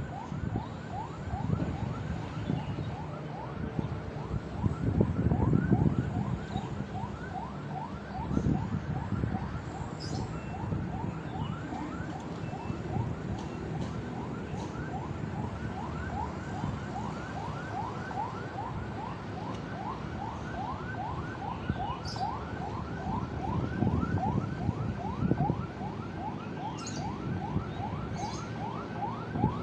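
An animal calling without pause in a rapid train of short rising chirps, about three or four a second, over a low rumble of wind or passing traffic that swells now and then.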